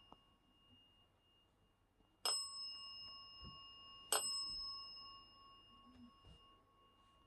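A small metal bell struck twice, about two seconds apart, each clear ring fading over a second or two.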